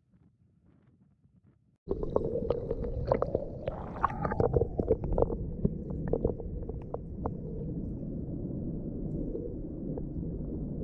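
Underwater sound as picked up by a submerged camera: a low, muffled rumble of moving sea water that starts suddenly about two seconds in, with scattered sharp crackling clicks over the next five seconds before it settles to a steady rumble.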